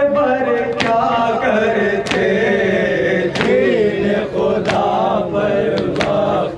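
Men chanting a noha refrain in chorus, with sharp chest-beating strokes (matam) landing together at an even beat, about one every 1.3 seconds.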